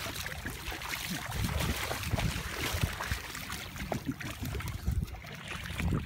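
Shallow seawater sloshing and splashing as it is waded through, in soft irregular pulses, with low rumbles of wind on the microphone.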